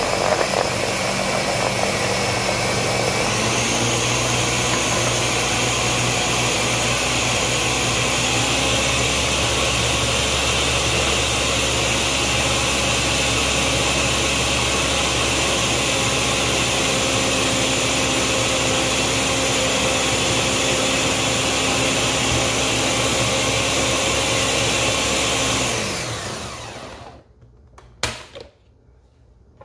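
Ninja countertop blender motor running steadily at full speed, chopping celery and other green vegetables with a little water for green juice. Its pitch steps up a little a few seconds in, and it winds down and stops near the end.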